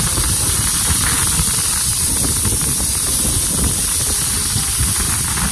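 Heavy rain falling: a loud, steady hiss with an uneven low rumble underneath.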